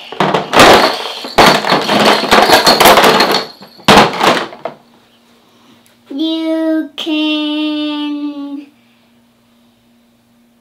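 Plastic toy tools clattering and rattling as a plastic toolbox is tipped over and emptied onto a table. Near the middle, a voice holds two steady sung notes, the second one longer.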